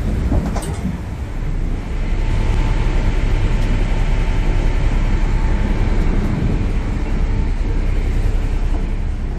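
Harbour ferry's engines and propellers running with a steady heavy rumble as it manoeuvres alongside the wharf, water churning in its wash; the rumble grows louder about two seconds in.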